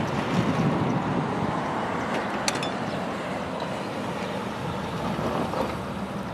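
Steady road traffic noise as a car drives past, with some wind on the microphone.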